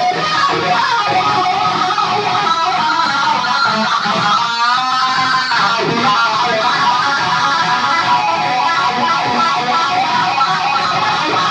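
Gibson Les Paul Custom electric guitar played through a Dunlop Cry Baby KH95 wah pedal, continuous amplified playing. About four and a half seconds in there is a brief break with a sweeping glide in pitch.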